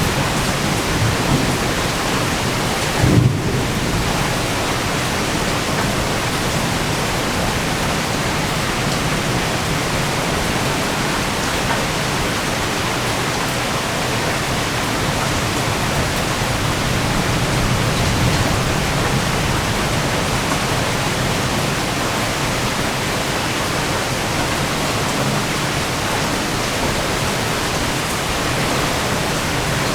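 Heavy, steady thunderstorm rain with thunder rumbling low underneath, swelling and fading, and a short, louder low thump about three seconds in.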